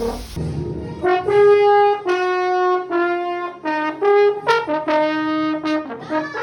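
Trombone played as a live comic sound effect: a quick run of about ten short held notes jumping up and down in pitch, with a couple of quick upward slides.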